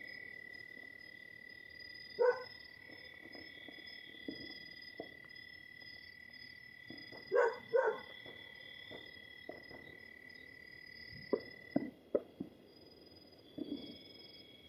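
A dog barking a few times, in short separate calls, over a steady high-pitched chirring of night insects.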